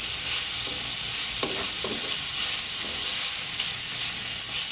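Beef frying in a pan, a steady sizzling hiss.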